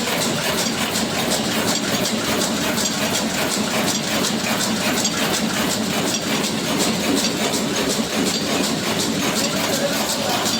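Power loom weaving saree cloth, running steadily with a continuous mechanical clatter of regular rapid knocks.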